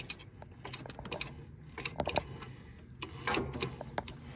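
Irregular light metallic clicks and rattles of hand work on a golf cart's accelerator cable and throttle linkage, about a dozen in all, with small bunches near the start, about two seconds in and a little after three seconds.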